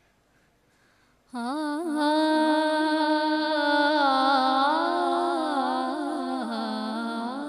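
A woman's solo voice begins a naat recitation about a second in, unaccompanied. It opens on long held notes with ornamented bends in pitch.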